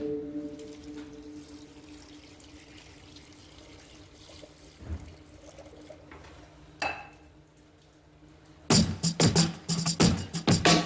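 Background music: a ringing tone dies away at the start, and a loud, rhythmic percussive beat starts near the end. In the quiet stretch between them there are faint sounds of water poured into a pot of spices.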